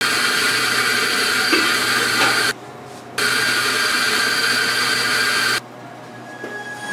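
Electric espresso grinder running, grinding coffee into a portafilter held under its chute, with a steady motor whir. It runs in two spells of about two and a half seconds each, with a short pause between.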